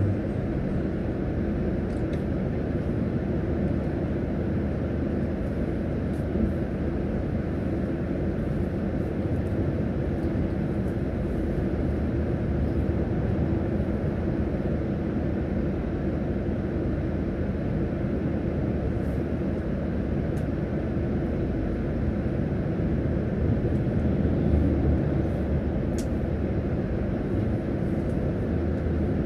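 A bus's engine idling while the bus stands still, heard from inside the cabin as a steady low hum, with the sound swelling briefly near the end as traffic goes by.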